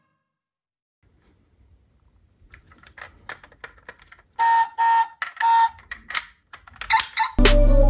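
Light clicks and rattles from a diecast model pickup truck being handled, its opening parts moved. About midway there are three short beeps, and two more shortly after.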